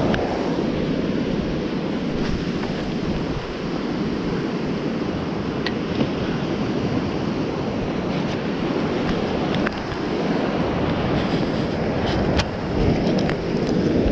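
Surf breaking and washing up a sandy beach, with steady wind on the microphone. A few faint sharp clicks come through now and then.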